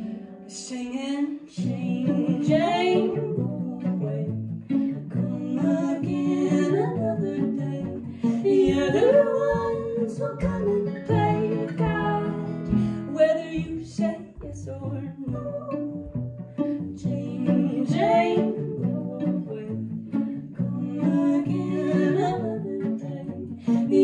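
Live acoustic string band playing a song: acoustic guitar, upright bass and fiddle, with singing.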